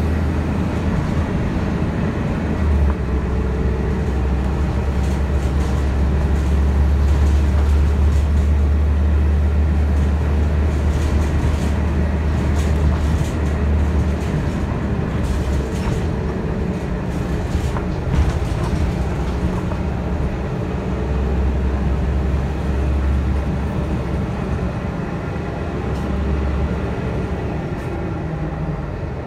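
City transit bus driving along, heard from inside the passenger cabin: a steady low engine and drivetrain rumble that eases off around the middle and builds again, with tyre and road noise on wet pavement.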